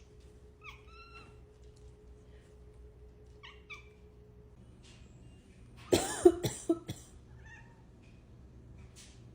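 A person coughing several times in quick succession about six seconds in, the loudest sound. Around the coughs, a house cat gives several short, low-pitched mews.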